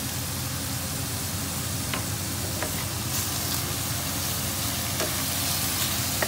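Chicken pieces sizzling in oil in a frying pan while being stirred with a spatula, with a few light taps and scrapes of the spatula against the pan.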